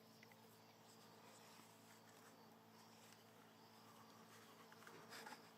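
Near silence: faint insect buzzing over a steady low hum, with a few brief faint clicks near the end.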